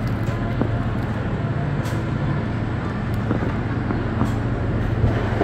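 Steady background noise of a restaurant dining room: a constant low hum under a general din, with a few faint clicks.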